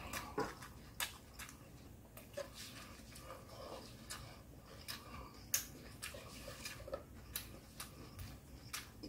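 Quiet eating sounds: irregular wet mouth clicks and smacks of chewing, with light handling of vegetables on a wooden board. One click about five and a half seconds in stands out as the loudest.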